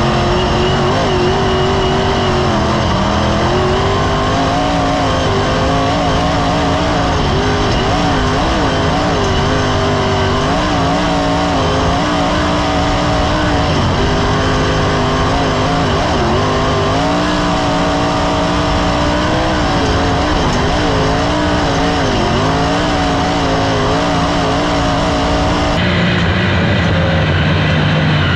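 A 360 sprint car's V8 engine at racing speed, heard from on board, with its pitch climbing down the straights and dropping off as it lifts for each corner, about every five or six seconds. Near the end the sound changes suddenly to a duller, steadier engine note.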